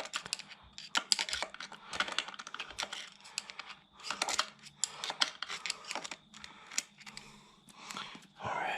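Quick, irregular light clicks and short scrapes of metal on metal: a magnet probed around inside a manual gearbox, rattling against the parts while fishing for a dropped bolt.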